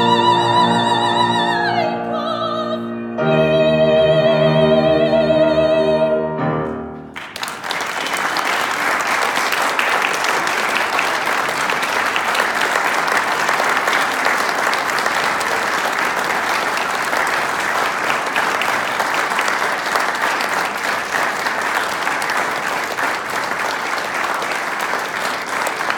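A woman's operatic soprano voice holds a high note that falls away, then sustains a final long note over piano accompaniment, ending about seven seconds in. Applause follows and continues steadily to the end.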